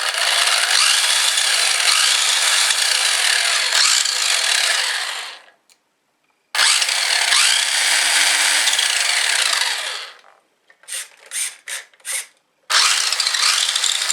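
Nikko Dictator RC buggy's two electric motors and four-wheel-drive gearboxes running under throttle, a loud gear whine whose pitch rises and falls. It cuts out about five and a half seconds in, runs again a second later, stops near ten seconds, gives a few quick throttle blips, then runs again near the end.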